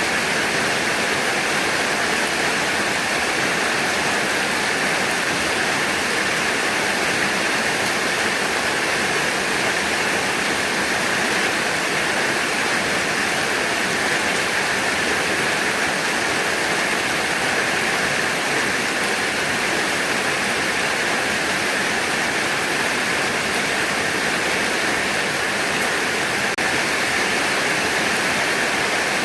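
Heavy rain falling steadily, an even, unbroken hiss of downpour with no changes or distinct drops standing out.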